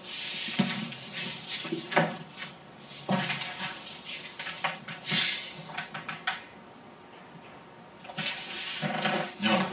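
Rustling and knocking of clothes and belongings being handled and packed into a cardboard box, in irregular bursts with a short lull shortly before the end.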